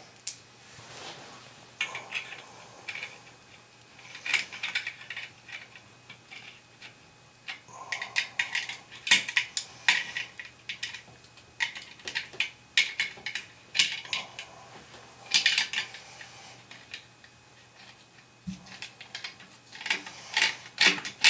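Irregular clinks, taps and clatters of hard parts and tools being handled and set down, some with a short metallic ring.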